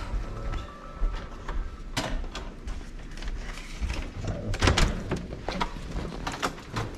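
A series of scattered knocks, clicks and clatter over a steady low background rumble. A sharp knock comes about two seconds in, and a louder cluster of knocks about four and a half to five seconds in.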